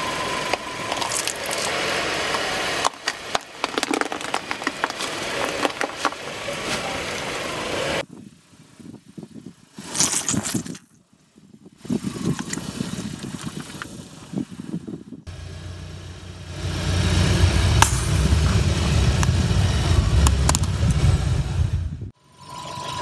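A car tyre rolling onto and crushing soft and brittle objects on asphalt in a run of short cuts, with cracking, clicks and squelching. In the later part the car's engine rumbles loudly and low as the tyre presses down.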